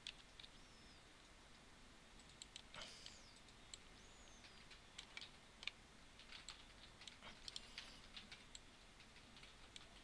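Faint, scattered clicks of a computer keyboard and mouse over near-silent room tone, more frequent in the second half.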